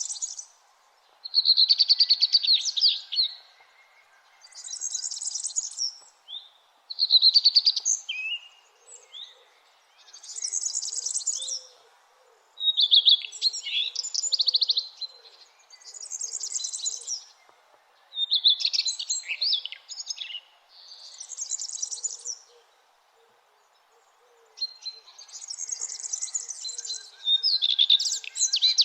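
Songbirds singing at dawn: short song phrases come one after another every couple of seconds, alternating between higher, hissy phrases and lower, fast trills. Fainter distant calls sit beneath them.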